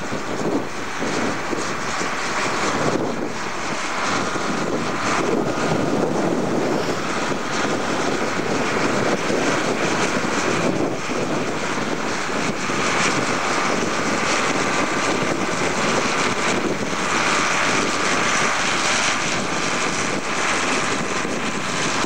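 Diesel engine of a Ford tractor running steadily under heavy load, pulling an eight-furrow semi-mounted Dowdeswell plough through the soil.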